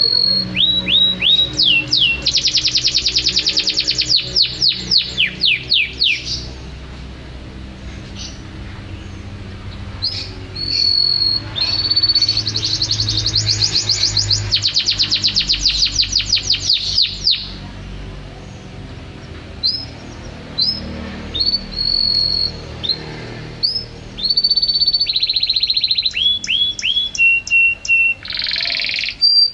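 Domestic canary singing: long phrases of fast rolling trills and rapid repeated notes, mixed with quick downward-sweeping whistles and held high notes, with short pauses between phrases.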